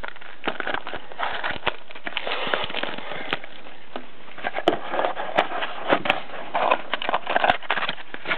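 Rustling and clicking of cardboard trading-card pack boxes being handled and opened, with scattered sharp taps and crackles throughout.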